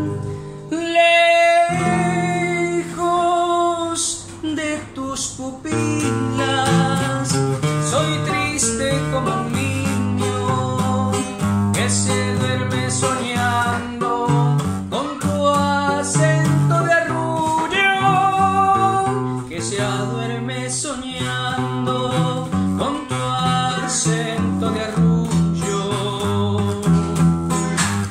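A man singing a Spanish-language pasillo to his own nylon-string classical guitar. The voice is clearest near the start, and the guitar then carries on with picked and strummed notes through long stretches.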